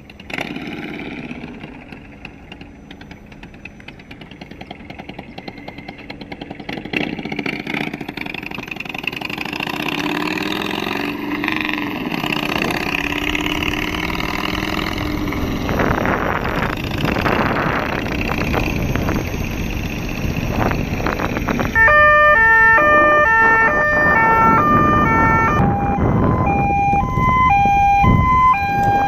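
Kingsong KS18L electric unicycle running, its motor whine rising and falling in pitch with speed under a growing rushing noise. From about 22 seconds in, loud stepped electronic tones jump between fixed pitches in a siren-like pattern, from the wheel's built-in speaker.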